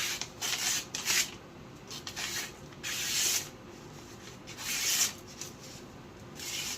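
Knife blade slicing through paper: a series of short, irregular hissing cuts, each lasting under half a second.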